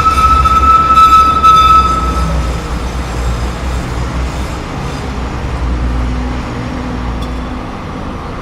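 Light-rail train's steel wheels squealing on the rails in a tight curve: a loud, steady, high-pitched screech that stops about two seconds in. The train's low rumble then carries on and slowly fades as it rolls away.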